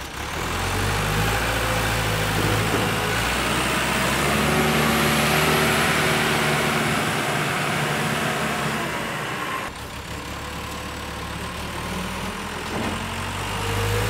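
A JLG telehandler's diesel engine running under load as it lifts a heavy log off a flatbed trailer. It grows louder toward the middle, drops off abruptly about ten seconds in, then builds again.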